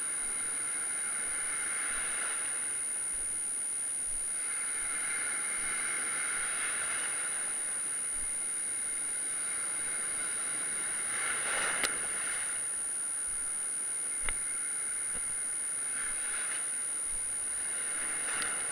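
Ocean surf breaking and washing close by in shallow water, swelling and easing several times, with a sharp knock about twelve seconds in and another two seconds later, over a steady high-pitched whine.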